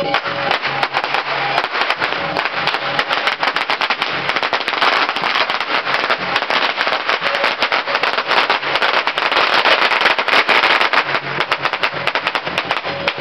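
A string of firecrackers going off in a rapid, continuous crackle of pops. The pops start about half a second in, are loudest around ten seconds in, and stop just before the end.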